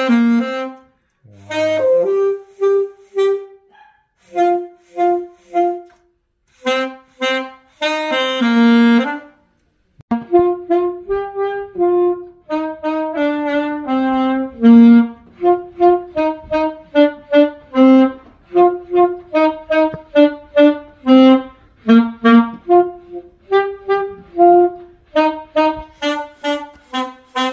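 A solo wind instrument playing a tune in short, separate notes. The first phrases are broken by brief pauses, and after about ten seconds the notes come faster and with fewer breaks.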